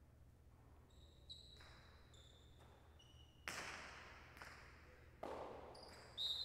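Jai alai pelota served against the front wall with a sharp crack about three and a half seconds in, then a second hard hit of the ball just under two seconds later, each ringing out in the large walled court. Short high squeaks come before the serve.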